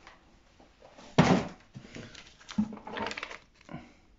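Paper and cardboard rustling as a printed leaflet is picked up and handled, with one short loud sound about a second in.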